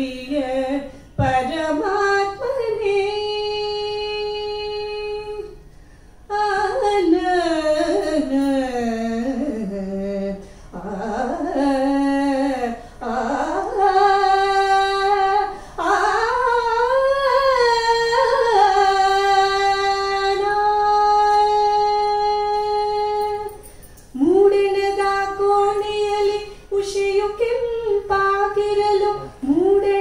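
A woman singing a Kannada mukthaka verse solo, her voice alone at the microphone. She sings in long phrases of held, steady notes and sliding ornamented runs, with short breaks for breath between them.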